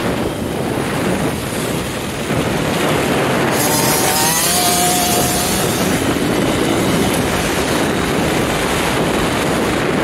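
Wind buffeting the microphone over a KTM 50 youth dirt bike's small two-stroke engine as it rides the track, with a brief rising engine whine about four seconds in.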